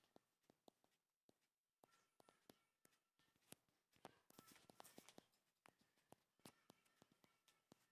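Near silence: faint room tone with scattered soft clicks and taps at irregular intervals.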